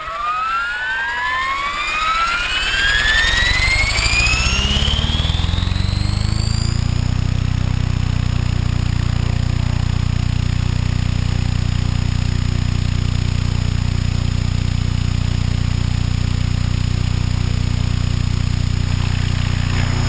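HK600GT RC helicopter spooling up: a whine climbs steadily in pitch over the first six or seven seconds as the motor and rotor come up to speed, then settles into a steady, even drone with a low rotor hum.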